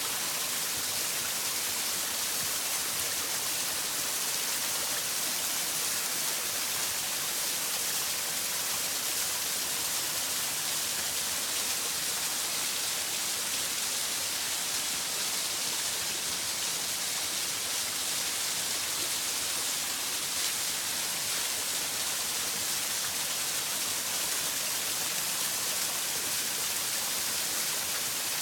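Waterfall pouring steadily, a constant hiss of falling water and spray. The fall is running high in spring now that its winter ice has gone.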